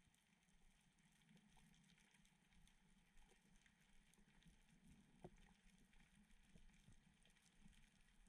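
Near silence: a faint low hum with a few soft clicks, one a little clearer about five seconds in.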